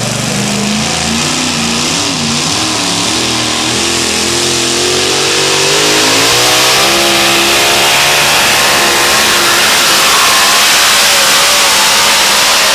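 Supercharged engine of a super modified two-wheel-drive pulling truck launching at full throttle. It is fairly steady for the first couple of seconds, then climbs in pitch with a wavering note, and holds high and loud under full load while it drags the sled.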